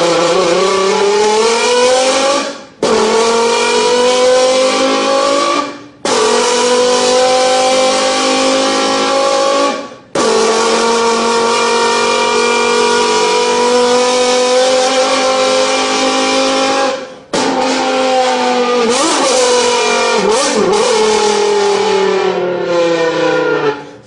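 Long, buzzy notes blown on a bottle, each held for several seconds with brief breaks for breath, at about 3, 6, 10 and 17 seconds. The pitch creeps slowly upward within the notes and wobbles up and down near the end.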